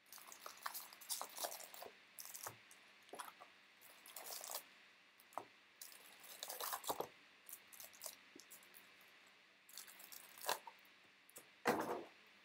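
Card-pack and box packaging being handled and opened: irregular crinkling and rustling of wrapper with scattered small clicks and taps, the loudest rustle near the end.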